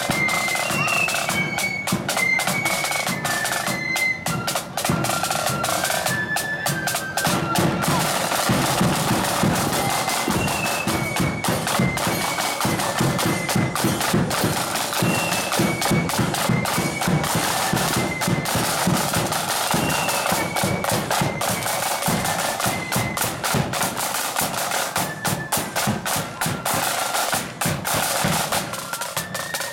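Marching band playing: massed snare drums in rapid rolls and patterns under a bass drum beat, with a high stepping melody line carried over the drums.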